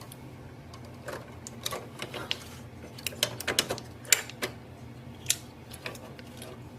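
Irregular light plastic clicks and taps as ink cartridges are fitted into an Epson L3210 printer's print head, over a low steady hum.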